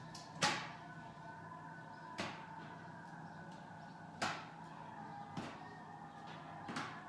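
Five sharp knocks, about two seconds apart, from hard items being handled while laundry is taken in.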